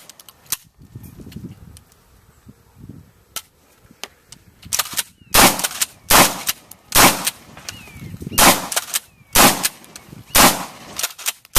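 Kel-Tec KSG pump-action shotgun fired in a rapid string of about seven loud shots, roughly one a second, starting nearly five seconds in. Before the string there are only a few small clicks and one faint crack.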